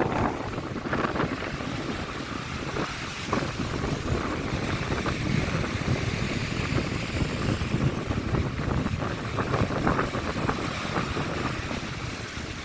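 Sea waves washing onto the shore in a steady wash, with wind buffeting the microphone.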